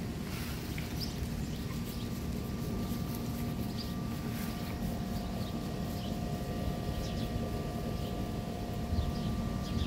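Outdoor backyard ambience: a low rumble of wind on the microphone under a steady machine hum, with small birds chirping now and then.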